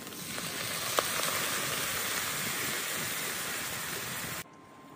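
Beer poured into a hot iron wok of stir-fried eggs and onions sizzles in a loud, steady hiss, with a single click about a second in. The sizzle cuts off suddenly near the end.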